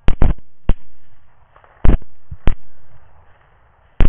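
A rapid, uneven volley of about six rifle shots from several hunters firing at a group of feral hogs, each a sharp crack that dies away over a fraction of a second. The shots come in a quick cluster at the start, then singly about two and two and a half seconds in, and again near the end.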